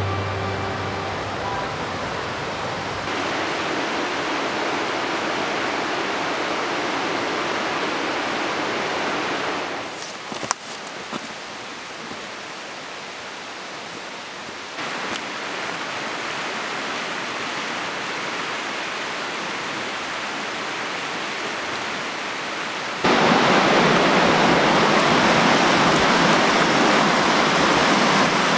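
Rushing water of a river and its creeks: a steady hiss that changes level abruptly several times and is loudest over the last few seconds.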